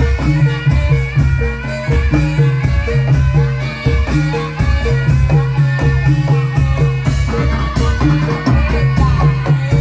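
Live traditional Javanese folk ensemble music with a steady beat: a short melody of repeated notes over deep low strokes, with percussion.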